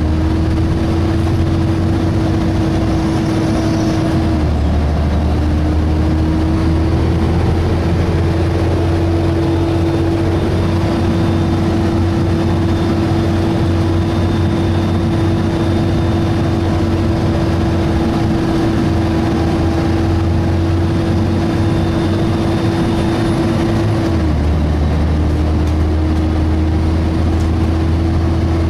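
Volvo B7TL double-decker bus's engine running, heard from on board, with a steady whine from its engine cooling fan over a low drone. The whine dips and glides back up in pitch about four seconds in and again near the end, as the low drone changes with it.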